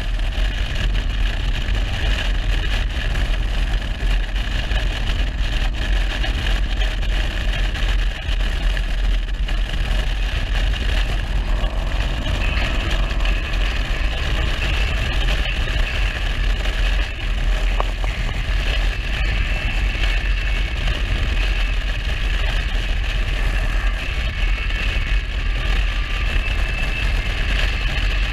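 Harley motorcycle riding at highway speed: wind rumbling steadily over the camera microphone, with engine and road noise underneath.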